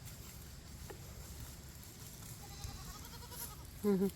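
A goat bleats: a faint, wavering call near the middle, then one short, loud bleat near the end.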